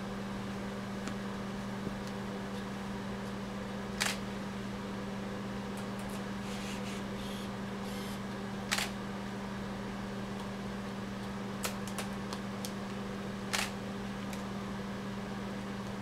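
A steady low hum, with a few short sharp clicks scattered through it.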